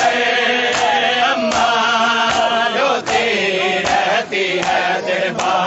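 Crowd of men chanting an Urdu nauha (mourning lament) in unison, punctuated by rhythmic matam chest-beating slaps about every three-quarters of a second.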